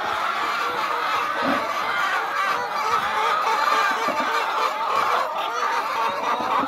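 A flock of hens clucking and calling all at once, a steady, dense chorus of overlapping calls.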